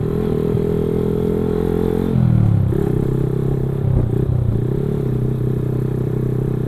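Motorcycle engine running while being ridden; about two seconds in the engine note drops, then holds steady again. A short knock sounds about four seconds in.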